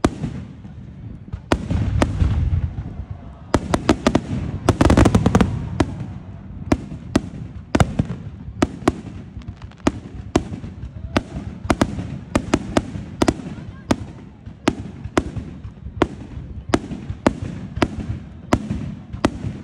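Fireworks display: aerial shells bursting in a steady run of sharp bangs, about two a second, with a dense flurry of bangs and crackle about four to five seconds in.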